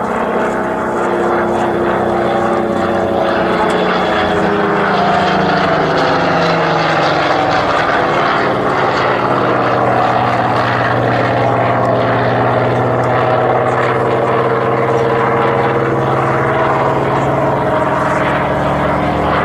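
Propeller-driven aircraft's piston engine running steadily, its note drifting slowly down and up in pitch.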